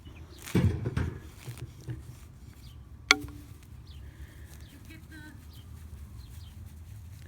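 Faint bird calls in the background, with a brief muffled rustle just under a second in and one sharp click about three seconds in.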